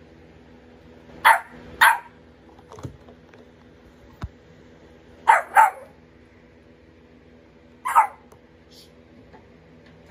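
Eight-week-old puppy barking: five short, sharp barks, two quick pairs and then a single bark near the end, over a faint steady hum.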